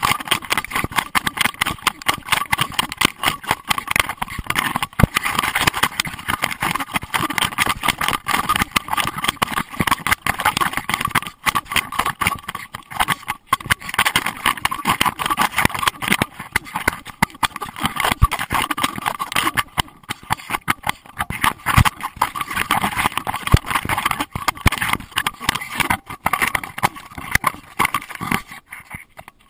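Constant rattling and knocking of a GoPro Hero2 in its waterproof housing, jostled on a running dog.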